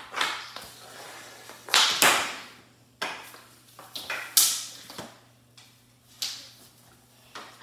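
Hockey sticks striking and scraping on a hardwood floor in a game of indoor hockey: a series of sharp, irregular hits and scrapes, the loudest about two seconds in and again about four and a half seconds in.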